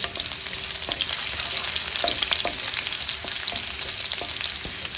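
Chopped garlic frying in hot oil in a kadai: a steady sizzling crackle with scattered small pops.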